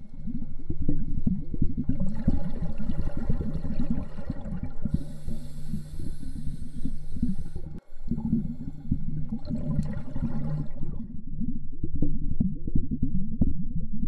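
Underwater pool ambience: a dense, irregular low rumbling of water as heard below the surface, with a fainter hiss above it for most of the stretch and a brief dropout about eight seconds in.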